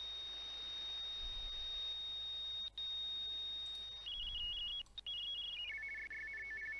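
Shortwave radio hiss with a steady high whistle from a carrier. About four seconds in, the receiver is tuned onto a radioteletype (RTTY) signal: a fast warble flipping between two close pitches (frequency-shift keying). Its pitch steps lower twice as the tuning is nudged.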